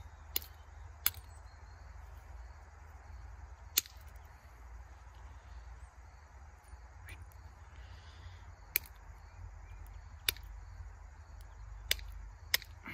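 Flint being pressure-flaked by hand: a series of sharp, single clicks as small flakes snap off the edge of the point, spaced irregularly from under a second to several seconds apart.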